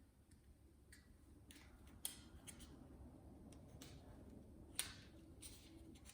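Faint scattered clicks and light taps, several short sharp ones, as a small part is worked loose from the TV's front assembly by hand.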